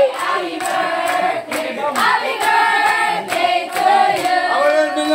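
A group of people singing together, with hand claps keeping time about twice a second.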